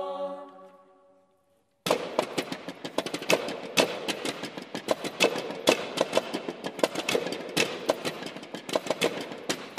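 A women's choir's held chord fades out, and after a short pause, about two seconds in, a dense, irregular clatter of many sharp taps and clicks begins from the singers, with a faint sung note underneath.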